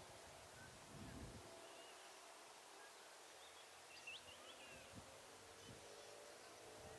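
Near silence: faint open-air ambience with a few brief, faint bird chirps about four seconds in.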